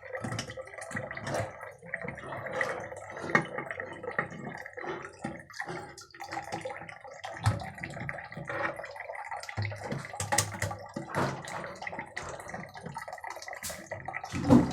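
Water running and trickling in a toilet cistern, with frequent small clicks and knocks from the flush handle lever and its pin being worked by hand, and a louder knock near the end.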